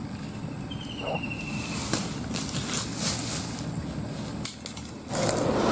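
A steady low rumble, with an insect's unbroken high-pitched drone over it that cuts off about five seconds in.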